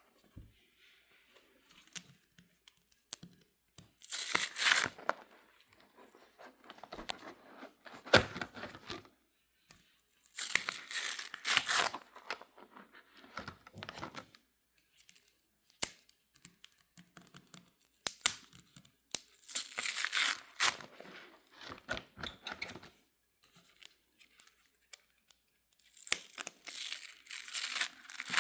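Pages of a binder of trading cards crinkling as they are handled and turned, in rustling bursts a second or two long every few seconds.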